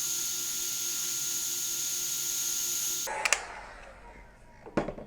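Heat gun blowing, a steady hiss with a thin high whine, warming heat-shrink tubing over freshly soldered ESC wire joints. It cuts off suddenly about three seconds in, followed by a sharp click and a knock about a second and a half later.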